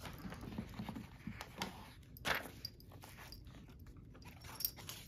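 Light, irregular taps and rustles of a trimmed paper piece being handled and test-fitted against a planner page, with one sharper click a little over two seconds in.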